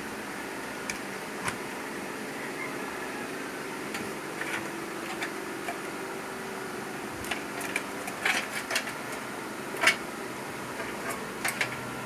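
Light clicks and knocks of power cables and plastic connectors being handled and plugged in inside a desktop PC case, most of them in the second half, the sharpest about ten seconds in, over a steady background hum.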